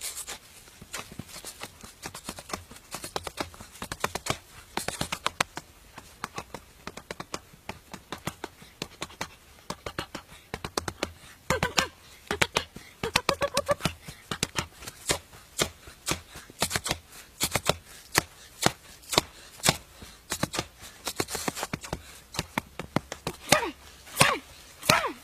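Rapid flurries of bare fists striking a birch trunk: sharp slaps and knocks several a second, busiest near the end. A few short pitched cries mix in around the middle.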